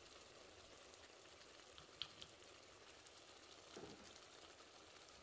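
Near silence: a covered karahi of chicken simmering faintly on low heat, an even hiss with a light click about two seconds in.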